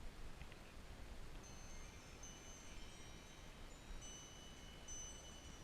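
Wind chimes ringing faintly: several high, held metallic notes overlapping and fading, starting about a second and a half in.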